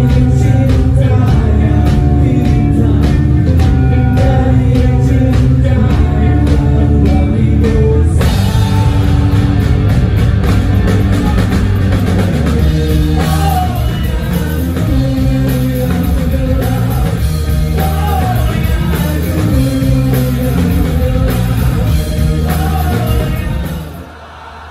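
Rock band playing live on stage: electric guitars, bass guitar and drum kit with a voice singing. The music drops away abruptly near the end.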